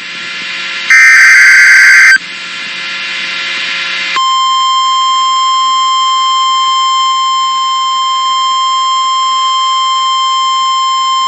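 Emergency Alert System SAME header: a harsh digital data screech about a second long, then a couple of seconds of radio hiss. From about four seconds in comes the weather radio's warning alarm tone, a single steady buzzy tone that signals a new warning is about to be read.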